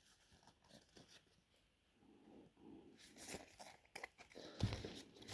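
Trading cards being handled: faint papery rustles and small clicks of card stock sliding and flipping, starting about three seconds in and getting a little louder near the end, after an almost silent start.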